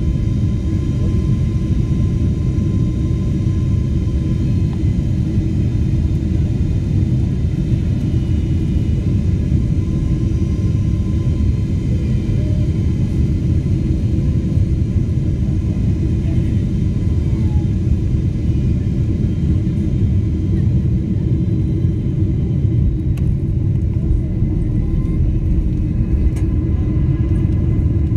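Cabin noise of an airliner on final approach, heard from inside at a window seat: a steady low rumble of engines and airflow with faint steady whine tones above it.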